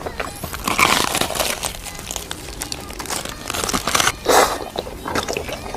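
Close-miked eating sounds: crisp crackling and crunching, a dense patter of small clicks, with a louder burst about four seconds in.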